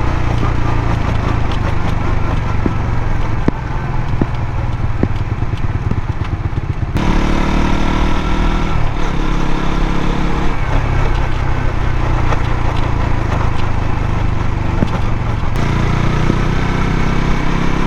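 Suzuki GSX-S125's single-cylinder four-stroke engine running, with irregular sharp ticks from the drive chain, which hangs too slack and knocks against the chain guide. The sound shifts abruptly about seven seconds in and again near the end.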